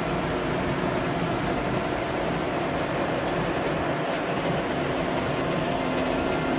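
Steady running noise of industrial machinery: an even mechanical hum with a few faint steady tones through it.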